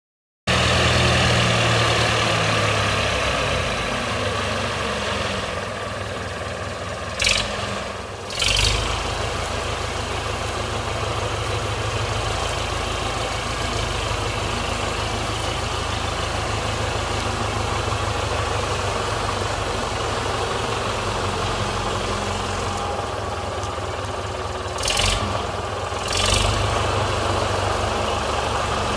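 The Norwood LM29 portable sawmill's engine running steadily. Twice, a pair of short hissing noises about a second apart cuts in over it.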